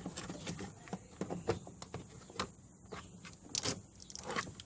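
Scattered small clicks and knocks of a plastic fuse box cover plate being handled, turned over and fitted back into place.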